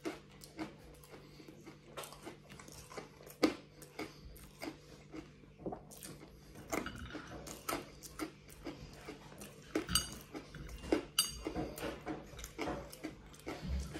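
Close-up chewing and crunching of fried garlic pieces, with irregular crunches and mouth noises as pieces go in one after another. There are two light clinks about two-thirds of the way through.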